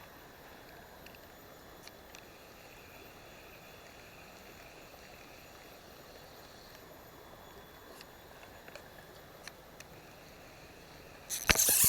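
Faint, steady rush of a small river flowing, with a few faint ticks; a loud rush of noise breaks in suddenly near the end.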